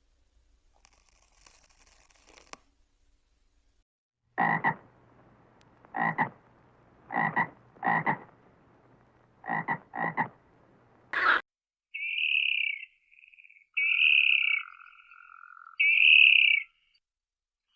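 A frog croaking: seven short, loud croaks over about seven seconds, then three longer, higher-pitched calls near the end.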